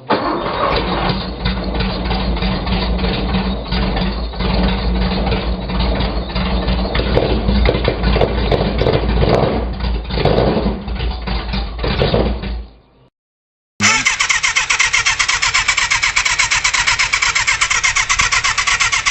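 Two big engines in turn. The first catches suddenly and runs unevenly, with irregular knocks, then dies away after about twelve seconds. After a brief silence, a second engine runs with a fast, even firing beat.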